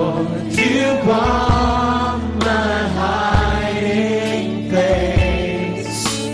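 Live Christian worship song: a group of singers singing a slow melody together over a band, with steady bass notes and occasional drum strokes.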